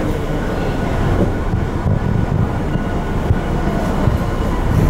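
Unrenovated Tokyo Metro 02 series subway car running, heard from inside the car: a steady rumble of wheels on the track with a faint whine from its Toshiba IGBT-VVVF inverter.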